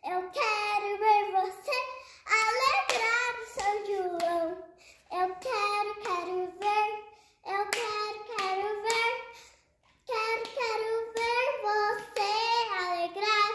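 A young girl singing unaccompanied in short phrases with brief pauses, clapping her hands a few times.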